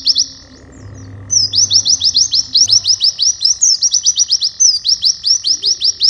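White-eye (pleci) singing a fast run of high notes, each sweeping sharply downward, about six a second: the rapid repeated 'nembak' song. The phrase stops shortly after the start and resumes about a second later as a long unbroken run.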